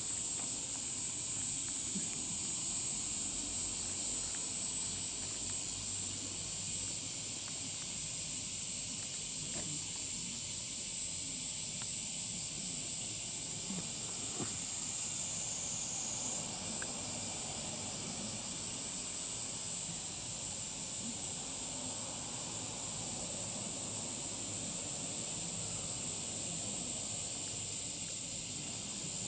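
Steady, high-pitched insect drone, with a brief dip in pitch about halfway through.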